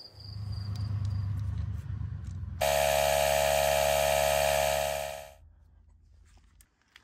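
Cordless tire inflator's compressor running steadily for about three seconds while it pumps up a travel trailer tire to about 63 psi, then stopping. A lower rumble comes before it.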